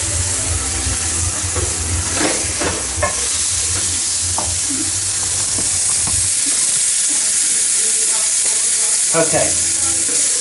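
Food frying with a steady sizzling hiss, a few light clicks over it. A low hum underneath cuts off about six seconds in.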